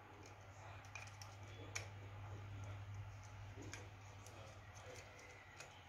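Faint, scattered clicks and taps of a hard plastic toy helicopter being turned over in the hand, over a low steady hum.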